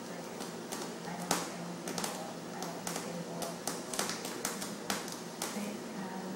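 About a dozen irregular light taps and clicks, the loudest about a second in: kittens' claws and paws catching on a folding camp chair's metal frame and fabric as they play.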